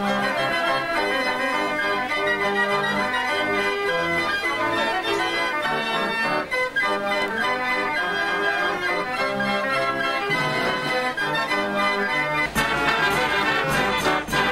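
Fairground organ playing a tune: a continuous run of pipe-organ notes at a steady level. For the last two seconds or so it sounds brighter and fuller, with a low rumble underneath.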